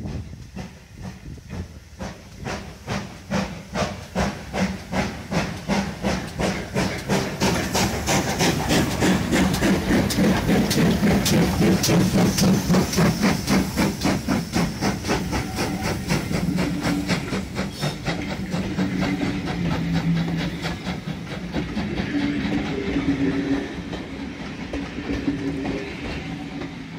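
Steam locomotive working hard as it approaches and passes, its exhaust chuffing in a steady rapid beat that grows louder to a peak about halfway. The passenger coaches then roll by, their wheels clattering on the rails.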